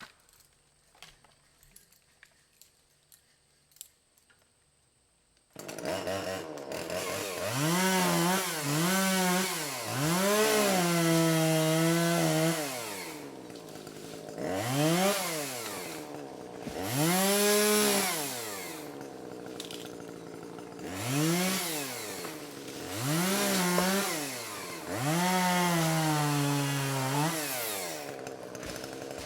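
Faint scattered clicks for about five seconds, then a chainsaw bursts into sound and revs up and back down again and again, now and then holding a steady pitch under load as it cuts through small trees.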